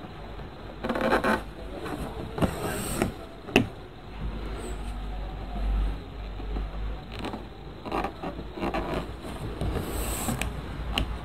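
Hands sewing: cloth rustling and thread drawn through fabric in short hissing pulls, with a couple of small clicks. A low rumble sits underneath, strongest in the middle.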